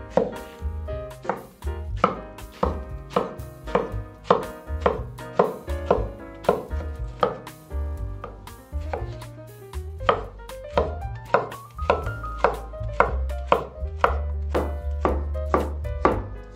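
Cleaver-style chef's knife chopping zucchini on a wooden cutting board: a steady run of sharp knocks of the blade through the vegetable onto the board, about two a second.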